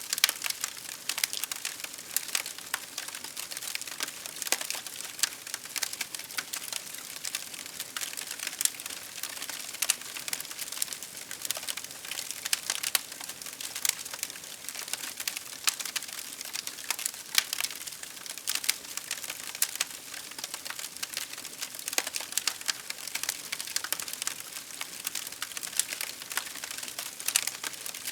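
Wood fire crackling steadily: a dense run of irregular sharp pops and snaps over a soft hiss.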